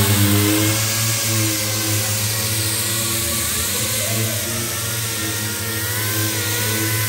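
Two pneumatic dual-action (DA) sanders with 80-grit paper running on a truck roof, grinding off delaminating clear coat. The sound is a steady air-motor whine over a gritty hiss, and the whine wavers slightly in pitch as the pads work.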